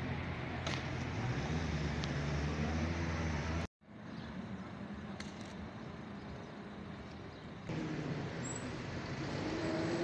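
Road traffic beside the park: car engines running and passing in a steady low rumble. It cuts out abruptly a little under four seconds in, resumes, and grows louder near eight seconds.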